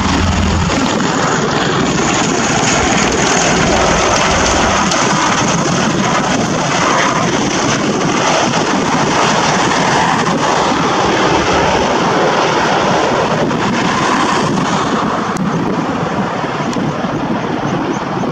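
Bell Boeing CV-22B Osprey tiltrotor flying low in helicopter mode, nacelles tilted up: a loud, steady rush of proprotor and twin turboshaft engine noise, easing slightly near the end.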